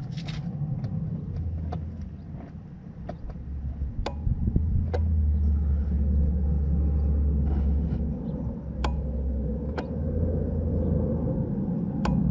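Several sharp relay clicks from the auxiliary relay box of a Mercedes 190E as the ignition is switched on, over a steady low rumble. The click comes from the relay next to the power-seat relay; the power-seat relay itself stays silent.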